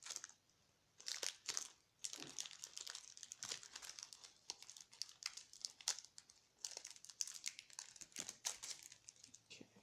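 Foil Pokémon booster pack wrapper crinkling in the hands as it is worked open: a run of sharp, irregular crackles starting about a second in.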